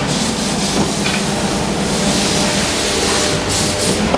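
Steady machinery noise on a plastic injection-moulding shop floor: a continuous low hum under a hiss.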